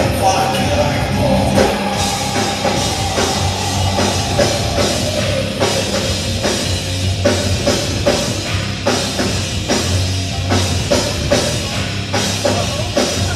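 A heavy rock band playing live: distorted electric guitars and bass over a pounding drum kit, with singing. A note is held for the first few seconds, under steady drum hits.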